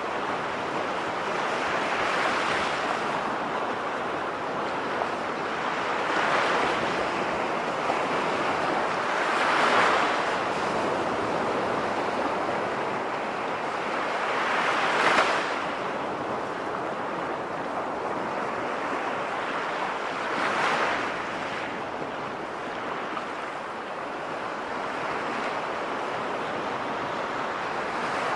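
Sea waves: a steady rush of surf that swells five times, every four to six seconds, as waves break.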